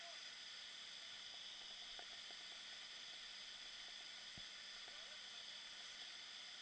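Faint, steady hiss with a low hum and a couple of faint ticks.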